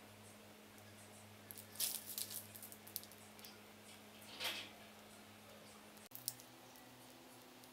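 Butter cookie dough being squeezed out of a piping bag onto parchment paper: faint sticky squishes and crinkles of the bag, in two short bursts about two seconds and four and a half seconds in, over a low steady hum.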